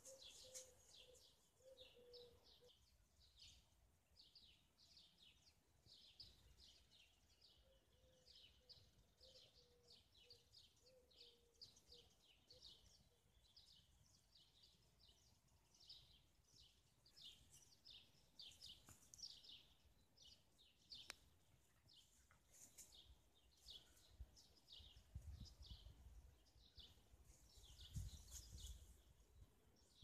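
Faint birdsong: a dense, continuous string of short, high chirps and trills from songbirds. A faint low rumble comes in near the end.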